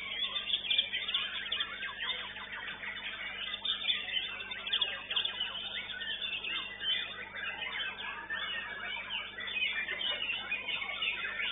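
Many caged competition songbirds singing at once: a dense, unbroken tangle of quick chirps, whistles and trills.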